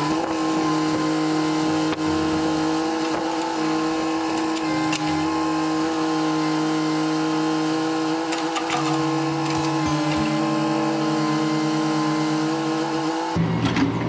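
Mini excavator's diesel engine running steadily while the machine digs and spreads sand, with a steady hum over it and a lower engine note shifting up and down as the arm works. The sound changes abruptly near the end.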